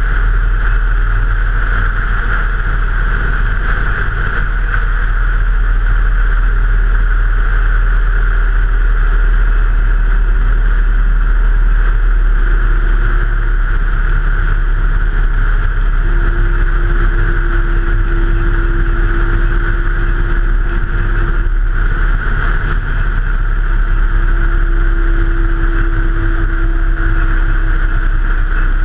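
Steady noise of a moving vehicle picked up by a camera mounted on it: low rumble and rushing wind, with a faint engine tone that rises slightly about halfway through.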